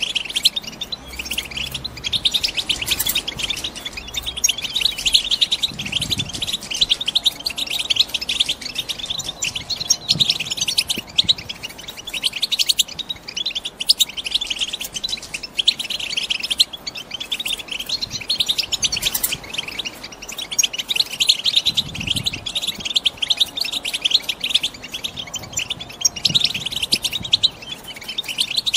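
Female European goldfinches chattering: a dense, unbroken run of rapid, high twittering calls. It is the excited chatter of hens in breeding condition.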